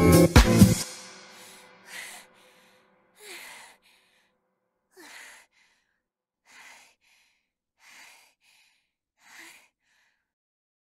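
Dance music with a steady beat stops abruptly just under a second in. Then a person breathes hard, out of breath after dancing: six faint breaths about every second and a half.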